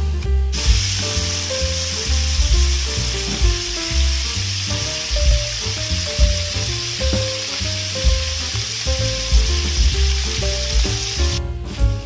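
Chicken wings sizzling as they fry in hot oil in a wok: a steady sizzle that starts about half a second in and cuts off abruptly near the end. Background music plays underneath throughout.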